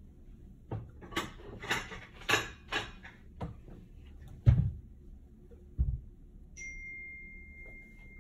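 Kitchen clatter: a quick run of about six sharp knocks, then two heavier thuds, then a steady high tone held for several seconds.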